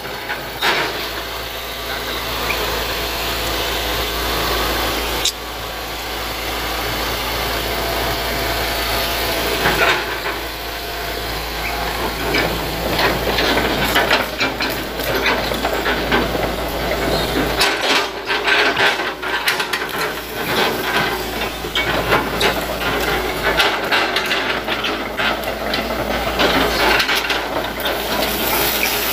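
Hitachi excavator's diesel engine running steadily as it works. From about halfway through come many sharp cracks and crunches as the bucket tears into oil palm roots and vegetation.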